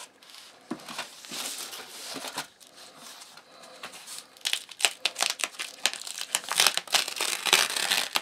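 Crinkling and rustling of a stab-vest panel's fabric cover being handled and opened by hand, with a dense run of sharp crackles in the second half.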